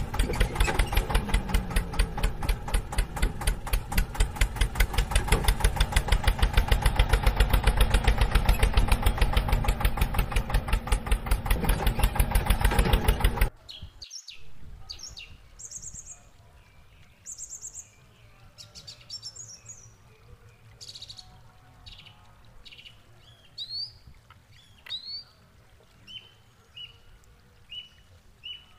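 Tractor engine idling with a steady, rapid chug that cuts off suddenly about 13 seconds in. After that, birds chirp with short, high calls.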